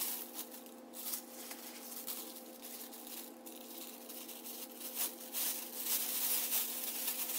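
Thin clear plastic disposable glove crinkling and rustling in irregular bursts as it is stretched and pulled on by hand, over a faint steady hum.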